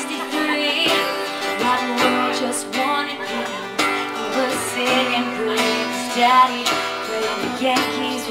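Live acoustic guitar strumming with women singing, a small band playing a song.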